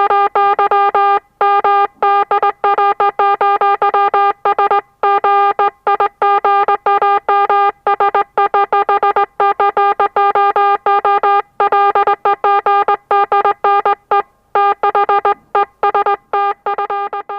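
Morse code message keyed on an audio oscillator at medium speed: one steady pitch switched on and off in short dots and longer dashes with brief gaps between letters and words, fading out near the end.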